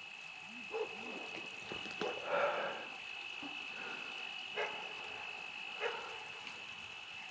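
Night insects giving a steady high trill, with faint rustling and a few soft clicks of handling.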